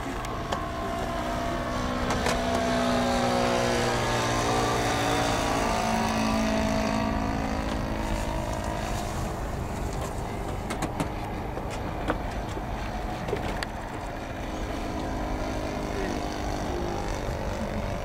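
Cessna 182's single piston engine and propeller droning overhead as the plane flies past. The pitch falls as it passes, a few seconds in, and the sound is loudest just before. A few sharp clicks are scattered through it.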